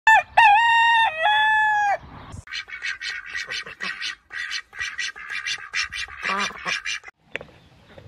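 A rooster crows, loud and clear, for about two seconds. Then a hen clucks in quick short calls, about three or four a second, stopping about seven seconds in.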